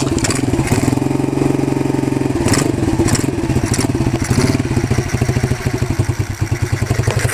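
Small single-cylinder four-stroke engine of a 110cc pit bike running on choke just after catching from a cold kick-start. It runs fast at first, then settles into a slower, uneven idle.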